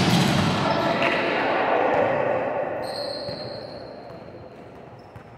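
Indoor volleyball practice: a volleyball hitting in an echoing gym hall, with a loud wash of noise at the start that fades away over about four seconds. A thin high-pitched tone comes in about halfway through.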